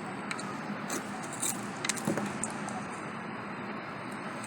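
Light clicks and scrapes of a knife working on a roasted breadfruit, over a steady background hiss.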